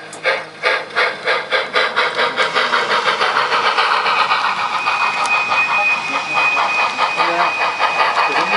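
Sound-equipped model of a narrow-gauge K-27 steam locomotive pulling away, its exhaust chuffs quickening from about three to about six a second. A thin steady high tone joins about five seconds in.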